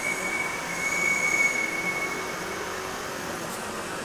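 Tiny 1.35 cm3 four-stroke spark-ignition engine of a gauge 1 model diesel shunter running steadily as the locomotive travels along the track. A high whine sits over the engine sound and fades after about two seconds.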